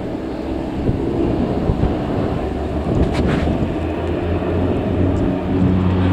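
Airliner engines rumbling at an airport, with a low steady hum growing stronger near the end as the aircraft comes closer.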